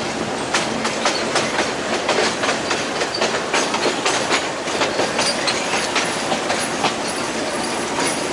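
Passenger train running on jointed track, heard from an open window. The wheels clatter over the rail joints with frequent sharp clicks over a steady rumble.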